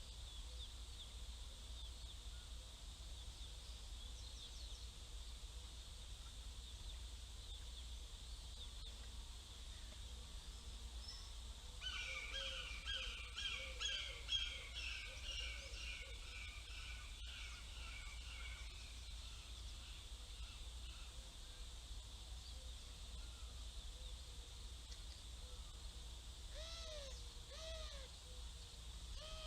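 Young hawk calling: a rapid run of harsh, repeated calls lasting several seconds midway, then two or three short arched calls near the end, over a steady low hum.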